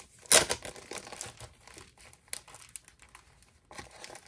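Clear plastic six-pocket slim binder pages crinkling and rustling as they are handled, loudest just after the start, then softer scattered crackles with a brief lull before more rustling near the end.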